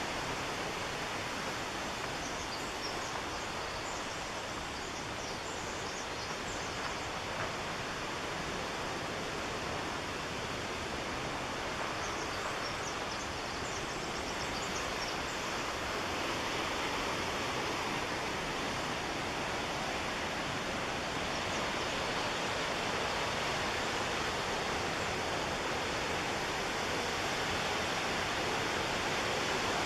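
Steady rushing of the McKenzie River's whitewater and falls, growing gradually louder toward the end.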